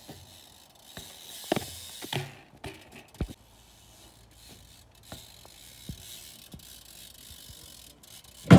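BMX bike ridden on asphalt: the rear hub's freewheel ticking as it coasts, with scattered knocks from the tyres and frame. One much louder thump near the end as the wheels hit the wooden manual box.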